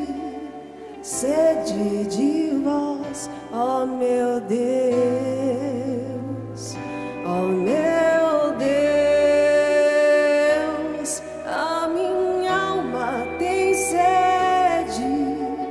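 Slow sung liturgical hymn: a solo voice with gliding, held notes over instrumental accompaniment with long sustained bass notes.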